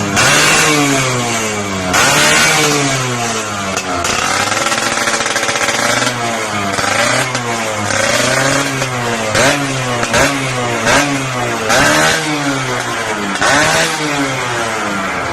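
Yamaha F1ZR 110 cc two-stroke motorcycle engine being revved repeatedly through its exhaust, the pitch rising and falling in blips every second or two, held a little longer about four seconds in.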